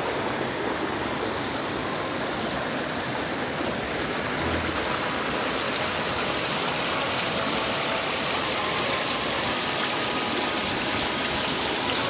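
Steady rushing of flowing water, like a stream or river running past.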